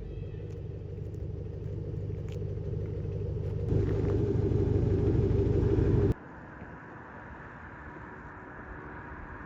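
A 2008 Mustang GT's 4.6-litre V8 running through its exhaust as a deep, steady rumble that grows louder and steps up about four seconds in. It cuts off abruptly about six seconds in, leaving a quieter steady background.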